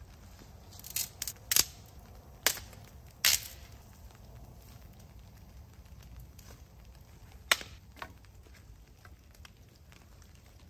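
Dry sticks snapping sharply, about five snaps in quick succession in the first few seconds and another loud one later, as kindling is broken over a small, newly lit campfire.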